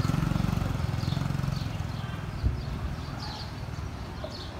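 A small engine running, loudest in the first two seconds and then fading, with a single knock midway and small birds chirping over it.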